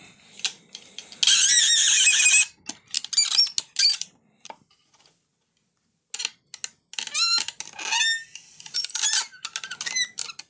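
Joints of a 3D-printed Edelkrone Ortak FlexTilt camera head squeaking as they are moved: PLA printed arms rubbing against aluminium shims. High, wavering squeals come in several spells, the loudest lasting about a second just after the start, with more near the middle and toward the end, and a few clicks between them.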